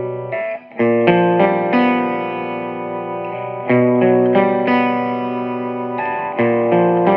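PRS 245 electric guitar played through a Peavey 6505+ combo with its stock speaker on the clean green channel, chords ringing out with digital delay. After a short break about half a second in, a series of new chords is struck, each left to ring.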